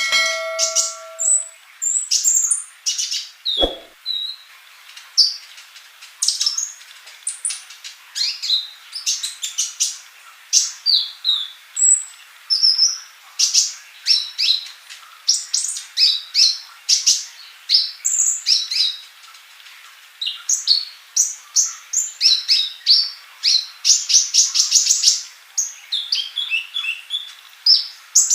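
Male kolibri ninja sunbird singing steadily: rapid series of high, thin chirps and short trills in repeated phrases with brief pauses between them. A short pitched tone sounds at the very start and a low thump about four seconds in.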